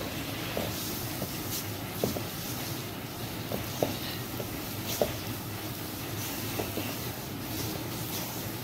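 A utensil stirring flour and wet ingredients into a dough in a stainless steel mixing bowl, scraping with irregular light clinks against the metal that ring briefly, over a steady low hum.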